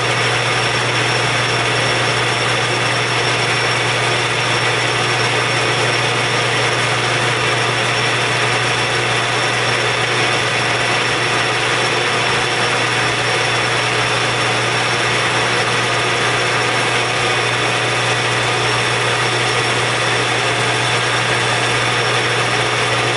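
Metal lathe running steadily, with a constant motor hum and an even hiss, while a carbide tool turns a mandrel down to size.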